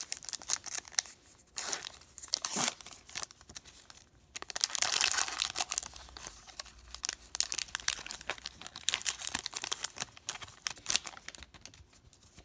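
Shiny foil wrapper of a trading-card pack being torn open and crinkled by hand, with a dense stretch of crackling about four to six seconds in.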